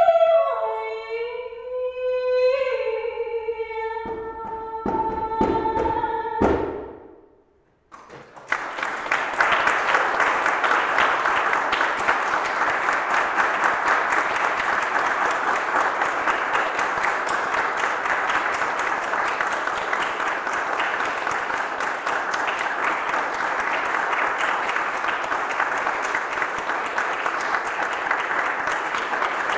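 A solo female voice sings the closing notes of a song, with a few djembe strokes under the last held note, and fades out about seven seconds in. After a moment's silence, audience applause starts and carries on steadily.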